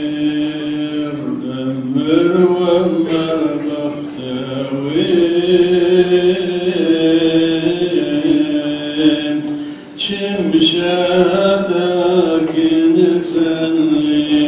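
Liturgical church chant: a sung vocal line in long held notes that step up and down, with a brief break about ten seconds in.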